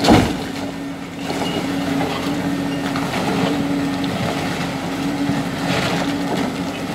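Hydraulic demolition excavators running with a steady engine hum as they break up a concrete footbridge deck. A loud crash of falling concrete comes right at the start, and fainter knocks of breaking concrete follow.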